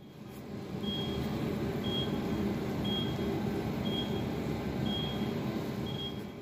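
A high-pitched electronic beep repeating about once a second, over a steady low rumble.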